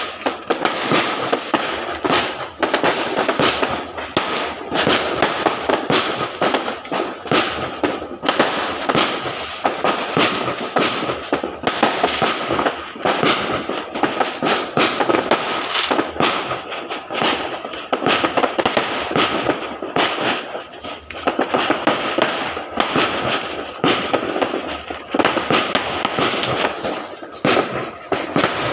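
Firecrackers and fireworks going off from many directions at once, answering one another in a dense, unbroken run of bangs and crackles, several each second. A steady high tone runs underneath.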